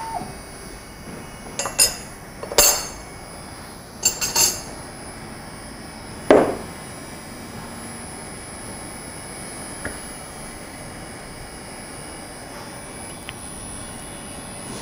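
The boring machine's motor hum cuts off at the very start, followed by a series of sharp metallic clicks and knocks as the machine's stop pin, levers and the wood blank are handled on the table, with a louder ringing knock about six seconds in.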